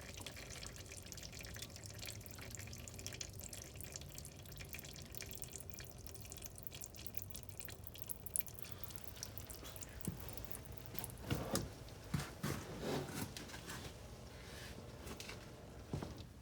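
Warm engine oil draining from the oil pan into a drain pan: a steady trickling stream with many small spattering drips, and a few louder splashes between about ten and thirteen seconds in.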